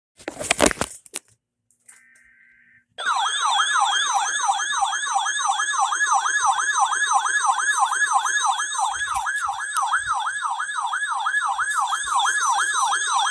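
Electronic alert tone of an Emergency Alert System test, warbling up and down about three times a second. It starts about three seconds in, after a short burst of noise and a faint brief data tone.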